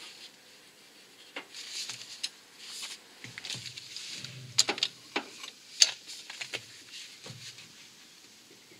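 Handling noise from gloved hands and a long wrench bar on the crankshaft pulley bolt as it is angle-tightened: bursts of glove rustling with scattered sharp clicks, the two loudest about four and a half and six seconds in.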